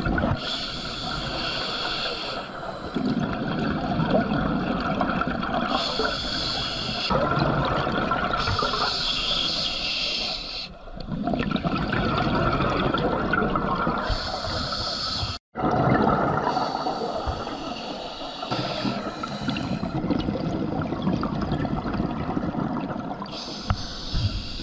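Scuba diver breathing through a regulator, heard underwater: short hissing inhales every few seconds, alternating with longer rushes of exhaled bubbles. The sound cuts out for a moment about halfway through.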